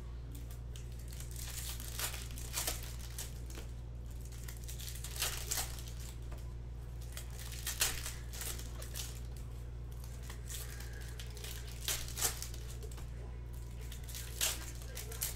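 Plastic shrink wrap being torn and crumpled off sealed trading-card hobby boxes, in short, irregular crinkles and rips over a steady low hum.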